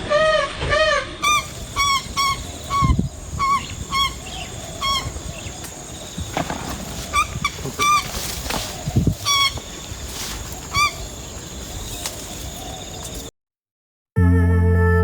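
A bird calling over and over: short calls, each rising and falling in pitch, in quick succession for the first five seconds, then now and then until about eleven seconds in. Near the end the sound cuts out for about a second and music starts.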